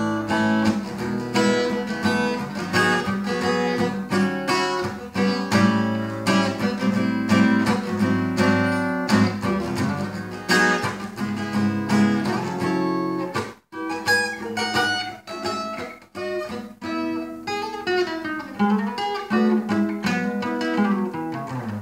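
Steel-string acoustic guitar playing an instrumental break with no singing: strummed chords at first, then, after a couple of brief stops a little past halfway, picked single-note runs.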